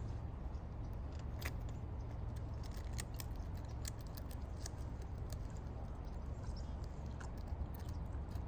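Birds pecking at a bag of chips: irregular sharp clicks and taps over a steady low rumble.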